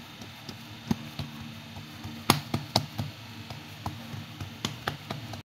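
Hands pressing and patting out an oiled ball of dough on a kitchen counter: scattered soft taps and pats, a couple of louder ones a little past the middle. The sound cuts off suddenly just before the end.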